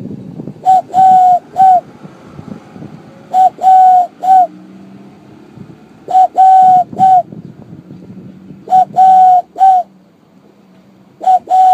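Cupped-hand whistle blown to imitate a dove's coo: repeated three-note phrases on one steady pitch, a short note, a longer held note, then a short note, about every two and a half seconds.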